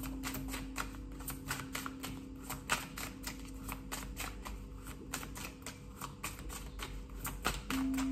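A tarot deck being shuffled by hand, giving quick irregular clicks and snaps of card against card, several a second. A steady low hum runs underneath and gets louder near the end.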